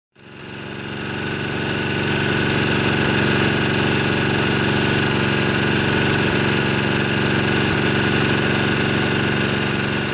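Tecumseh H30 3-horsepower side-shaft engine idling steadily and smoothly, a sign that its carburetor is cleaned and set right. The sound fades up from silence over the first two seconds.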